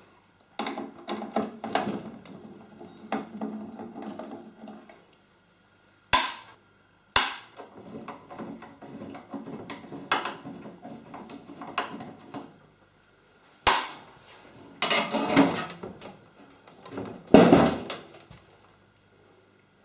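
Hand tools knocking and clattering, with a few sharp single strikes and two louder rattling spells near the end.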